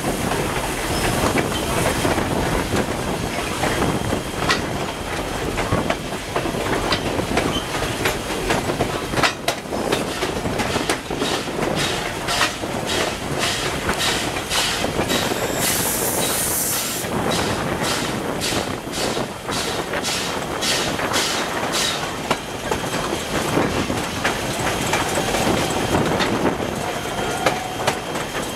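1910-built former Canadian National 2-6-0 steam locomotive No. 89 running with its train, with the wheels clicking over the rail joints in a steady rhythm. A brief hiss comes about halfway through.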